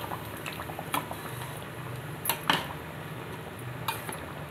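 Metal spoon clinking against a cooking pot while stirring curry: four sharp knocks, two of them close together midway, over a low steady hum.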